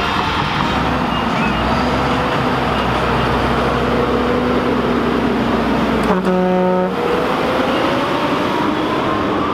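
Tractor diesel engines running steadily. About six seconds in a horn sounds once for under a second, then an engine revs up, its pitch rising over the last few seconds.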